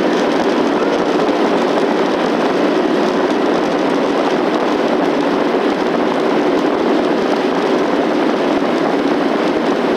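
Steady jet engine and airflow noise heard inside an airliner cabin, a loud, even rush that does not change.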